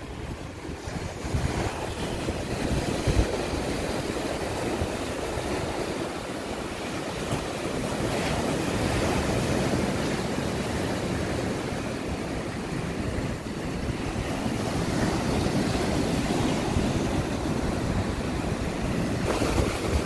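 Baltic Sea surf: small waves breaking and washing up a sandy beach in a continuous wash that swells and eases every few seconds, with wind rumbling on the microphone.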